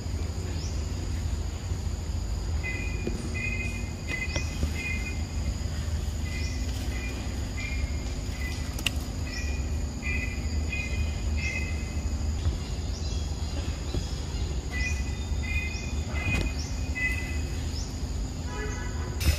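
Forest ambience: a steady high insect drone, with a bird repeating short two-note chirps in bursts, over a low steady rumble.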